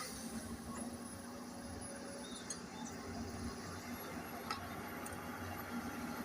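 Excavator's diesel engine running steadily at some distance, a low even hum with a few faint ticks.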